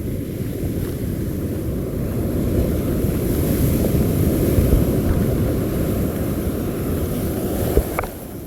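Wind rumbling on the microphone over surf breaking on the beach, steady throughout, with one short click near the end.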